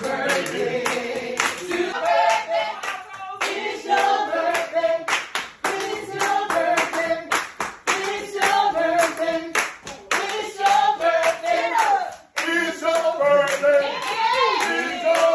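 A group of people clapping in a steady rhythm while voices sing along.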